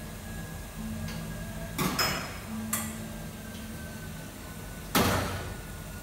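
Several sharp knocks and clanks, one followed by a brief high ring, with the loudest near the end, over a low hum.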